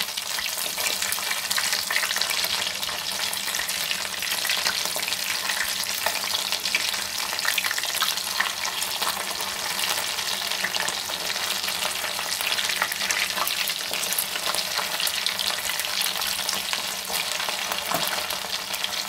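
Battered chicken pieces deep-frying in hot oil in a kadai: a steady sizzle with constant fine crackling, while a wooden spatula turns the pieces in the oil.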